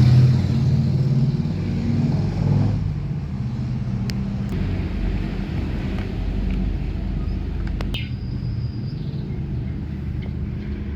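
Mini washing machine's motor running with a steady low hum, with a few sharp clicks and a short high tone about eight seconds in.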